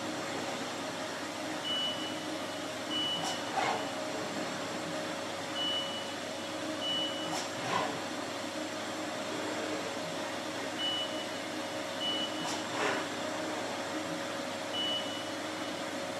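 Haas VF-4SS CNC mill running a touch-probe cycle, with a steady machine hum. Four times a pair of short high beeps about a second apart is followed by a pair of faint clicks as the probe stylus touches off the sides of the workpiece.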